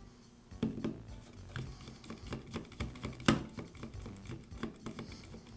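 Scattered light clicks and taps of a Makita grinder's housing and parts being handled and fitted back together, with one sharper knock about three seconds in.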